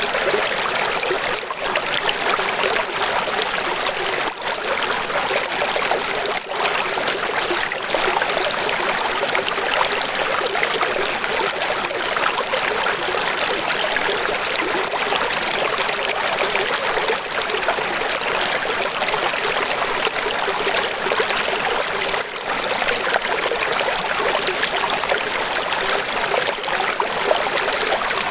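Steady rushing water, with an even splashing hiss and hardly any low rumble.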